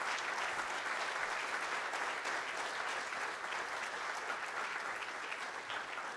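An audience in a lecture hall applauding, many hands clapping steadily.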